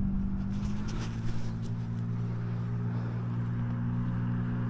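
A motor engine running with a steady low hum that holds one pitch, with a few light clicks about a second in.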